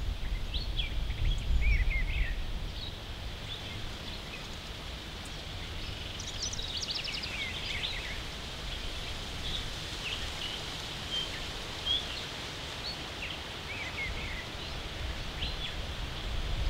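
Outdoor ambience of small songbirds chirping and trilling in short, scattered phrases. A low wind rumble on the microphone is heard for the first two seconds and comes back near the end.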